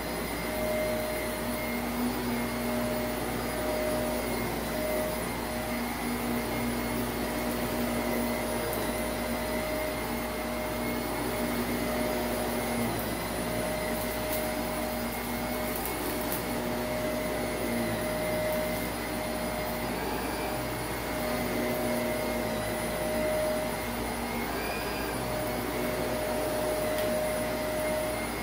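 Shark Navigator upright vacuum running steadily on a shag rug, its motor giving a steady hum with a faint whine. Around the middle come a few light crackles of grit being sucked up.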